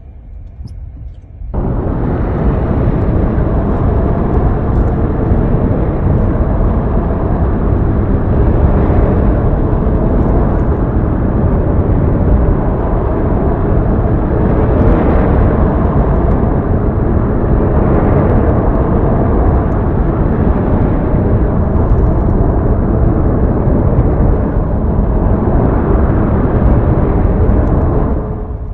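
Steady rumbling road and engine noise from inside a moving car's cabin. It starts suddenly about a second and a half in.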